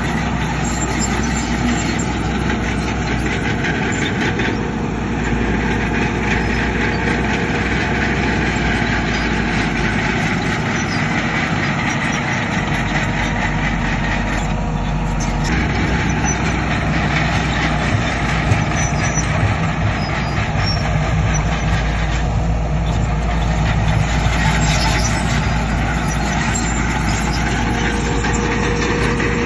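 Heavy diesel earthmoving machinery running steadily: a Shantui bulldozer and dump trucks at work, a loud continuous engine din.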